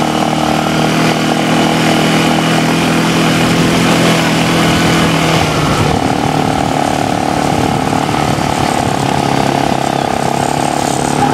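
Kazuma ATV engine running under way, pulling the quad across grass; the engine note changes about halfway through.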